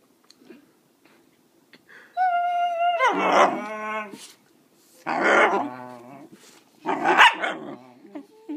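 A puppy whines, high and steady, then barks loudly three times. The first two barks are drawn out into wavering howls. It is barking to be given a treat.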